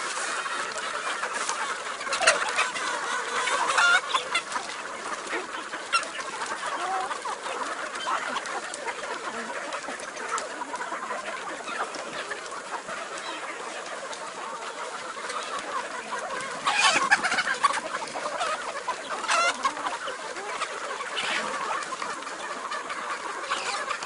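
A flock of chickens clucking continuously, many birds calling over one another. Louder calls break out a couple of seconds in and again after about seventeen seconds.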